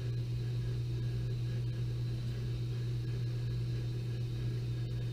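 A steady low machine hum, unchanging throughout, with a faint even background hiss.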